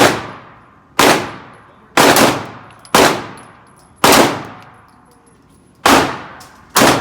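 Glock 17 Gen4 9 mm pistol fired one-handed in a steady string of about eight shots, roughly one a second with a quick pair near the second shot mark and a longer gap before the last two. Each shot rings out with a long echoing tail.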